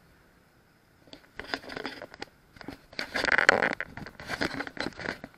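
Irregular crackling and scraping against an action camera's microphone, with sharp clicks, starting about a second in and loudest around the middle: handling noise from the hand holding the camera.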